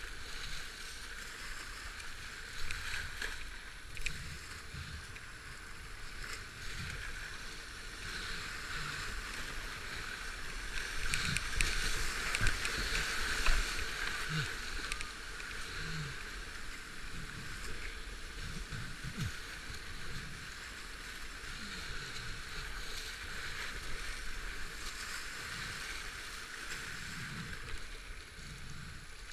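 Rushing whitewater and splashing around a kayak running a rapid, a steady noisy wash that grows louder about halfway through, with scattered dull thumps of water against the boat.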